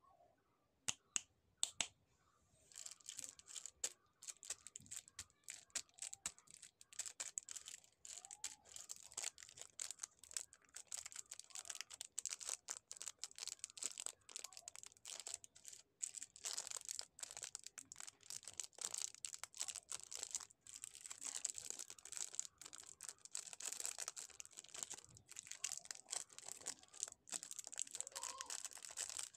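Clear cellophane candy wrappers crinkling and crackling as they are squeezed and handled, with a few sharp clicks about a second in before the continuous crinkling starts.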